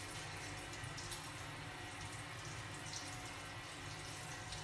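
Butter sizzling steadily in a hot wok with mustard seeds, with a couple of faint pops as the seeds start to burst: the sign the fat is hot enough for the aromatics.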